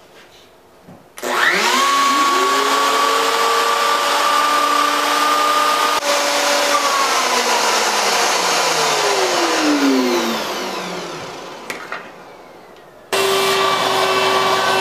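Festool router with a 1/8-inch downcut spiral bit spinning up with a rising whine about a second in and running steadily while plunging holes to waste out a mortise. It is switched off and winds down with a falling whine, then starts running again suddenly near the end.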